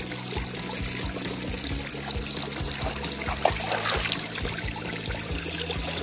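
Thin jets of spring water trickling and splashing into a shallow pool, under background music with held low notes.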